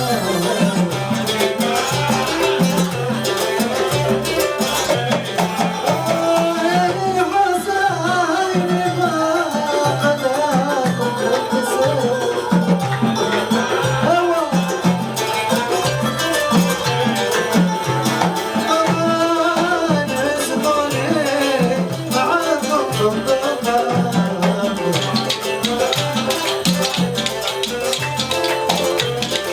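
Gulf Arabic song with a male singer's melodic vocal line over a steady, repeating percussion and bass beat with shaker-like rattles.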